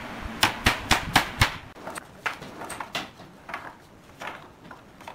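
Steel claw hammer driving a nail into pallet wood: about six quick, sharp blows in the first second and a half. After that, lighter wooden knocks as loose pallet boards are set down on the frame.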